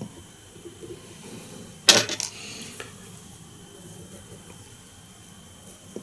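Brief clatter of a small hard object, a few quick clicks close together about two seconds in, over faint rustling of hands handling fly-tying tools.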